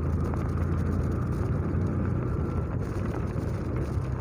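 Motorcycle engine running steadily under way, a low even hum with a rushing haze of road noise.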